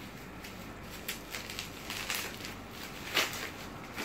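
Handling noise from a pair of new sneakers turned over in the hands above their cardboard box: irregular rustling and crackling, with one louder crackle about three seconds in.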